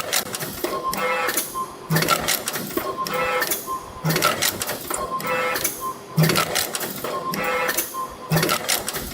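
YHM EF-620 CNC extension spring machine coiling 1.7 mm wire and forming German hooks, running in a repeating production cycle. Each cycle of mechanical clatter and clicks with short whirring tones repeats about every two seconds, four times over.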